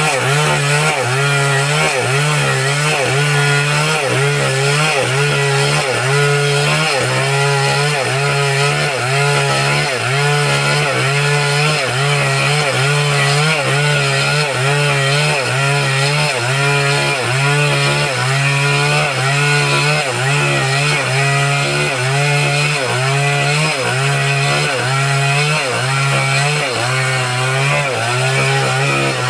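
An old engine-driven machine running continuously under a rhythmic load. Its pitch drops and recovers evenly a little more than once a second.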